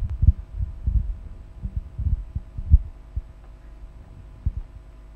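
Irregular dull low thumps over a steady electrical hum: microphone handling noise as a mic is passed around. The thumps come thick in the first few seconds, then thin out.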